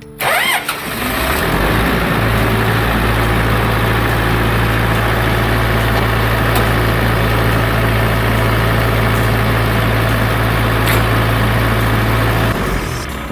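Engine of an engine-driven fire pump starting and running steadily at a constant pitch, then stopping near the end.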